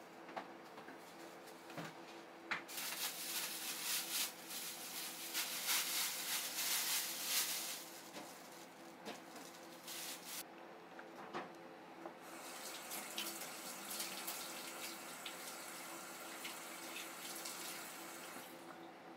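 Water running, as from a tap, in two spells: a louder one of about five seconds, then after a short break with a few clicks a softer one lasting most of the rest. A faint steady hum lies underneath.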